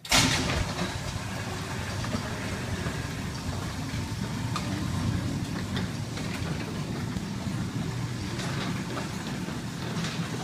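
Motorised overhead bay door opening: the opener motor starts abruptly and runs steadily while the door rolls up, with scattered clicks and rattles from the door.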